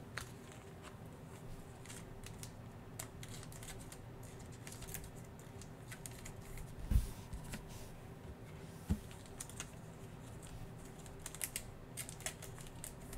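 Hands handling NFL Mosaic trading cards and their pack: scattered light clicks and ticks as the cards are flipped through, with two soft thumps about seven and nine seconds in.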